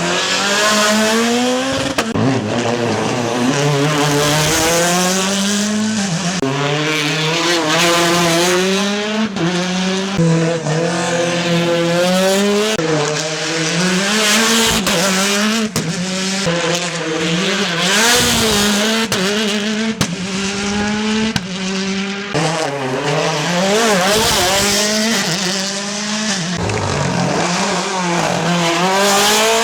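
Rally car engines revving hard through a stage, the pitch climbing and then dropping sharply again and again as the drivers shift gears and lift, with tyre noise underneath.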